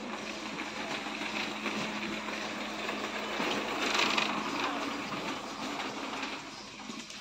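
Shop background noise: a steady low machine hum under a general din that swells around four seconds in.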